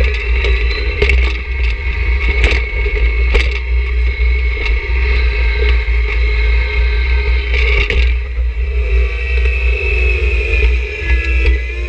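John Deere 1026R sub-compact tractor's three-cylinder diesel engine running steadily under load as its front snow pusher shoves snow, with scattered knocks and scrapes from the pusher. Near the end the engine's pitch sags a little.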